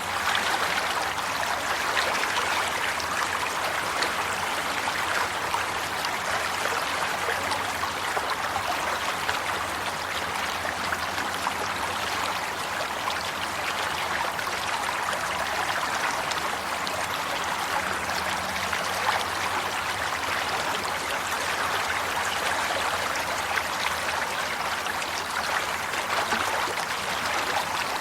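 Water flowing steadily in a stream, a continuous even rush with fine trickling and splashing.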